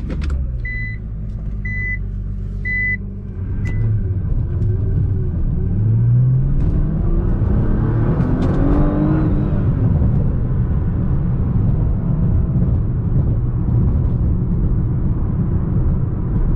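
Nissan GT-R's twin-turbo V6 running. Three short electronic beeps about a second apart come early, then the engine pulls up in pitch over several seconds as the car accelerates and settles into a steady running and road rumble.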